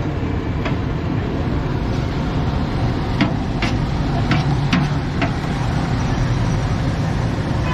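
Steady low rumble of roadside traffic, with five sharp clicks between about three and five seconds in.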